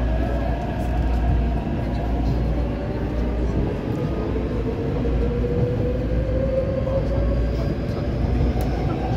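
Taipei Metro C381 steel-wheel train heard from inside the car while under way: a steady rumble of wheels on rail, with a traction motor whine that climbs steadily in pitch over the second half.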